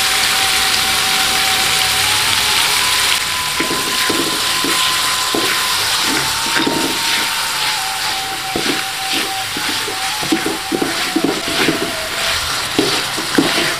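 Shrimp and chicken stir-frying in a hot wok with freshly added oyster sauce and sweet soy sauce, sizzling steadily. From a few seconds in, a wooden spatula's strokes scrape and knock against the wok, quickening near the end.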